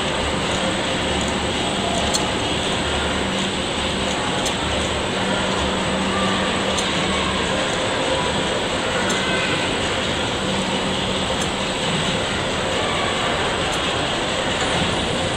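Large stationary engine running in motion: a steady mechanical clatter and hum of its moving parts, with a faint sharp tick about every two seconds as the mechanism cycles.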